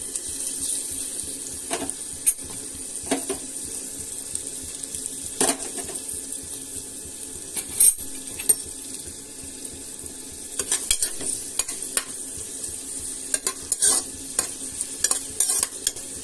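Sliced onions sizzling in hot coconut oil in a pot, with a spatula stirring them and clicking against the pot now and then. The clicks come thicker in the last few seconds.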